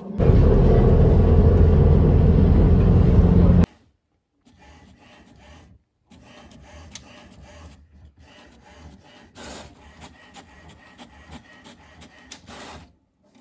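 A loud, rough rubbing noise for the first three and a half seconds, cutting off abruptly. Then an HP Smart Tank 515 inkjet printer printing a page: quieter scratchy passes of the print head with many small clicks and whirs as the paper feeds out.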